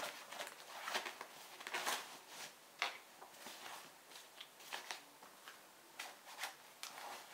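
Hands rustling and crinkling clear plastic bags and papers while stuffing them into a fabric diaper-bag pocket, in short irregular bursts.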